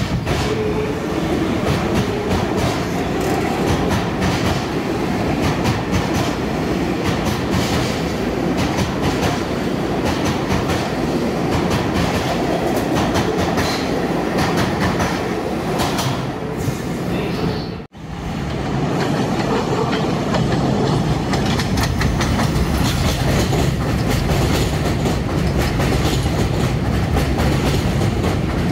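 New York City subway train of R62A cars running, its wheels clicking over the rail joints amid a steady rumble. The sound breaks off for an instant about two-thirds of the way through, then the train noise carries on.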